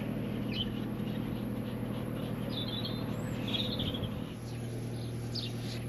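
Small birds chirping a few times in short calls over a steady low mechanical hum.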